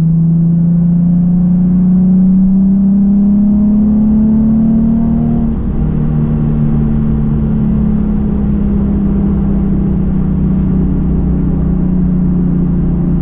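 Nissan 370Z Nismo's 3.7-litre V6 (VQ37VHR) breathing through an AAM Resonated Short Tails axle-back exhaust, heard from inside the cabin while driving. A low exhaust drone climbs steadily in pitch under acceleration for about five seconds, then dips briefly and settles into a steady cruising note that eases slowly.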